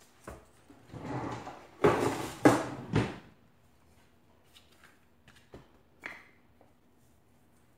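Wooden rolling pin handled and rolled over a floured disc of biscuit dough on a mat: a few loud scraping, rumbling strokes in the first three seconds, then only faint taps and clicks as the rolling goes on.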